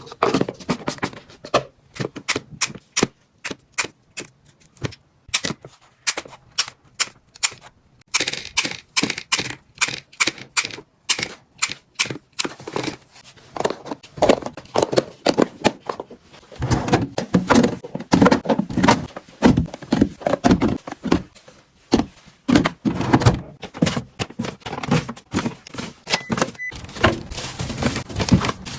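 Hard plastic storage boxes being handled and set down: a busy, irregular run of clicks, taps and knocks.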